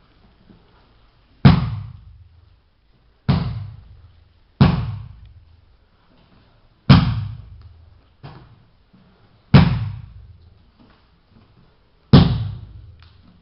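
About seven sharp slaps and thuds on the padded training mats, a second or two apart, during jiu-jitsu techniques on a partner on the floor. Each one rings out briefly in the hall.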